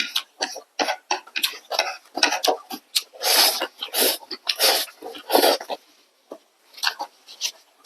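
Close-miked eating sounds: wet chewing and smacking of instant noodles, with a few longer slurps through the middle.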